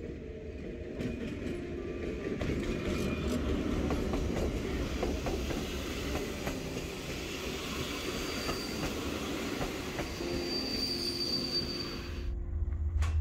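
Train running on the rails: a steady rumbling clatter that builds over the first couple of seconds, with a thin high wheel squeal twice in the second half. The sound cuts off sharply about twelve seconds in.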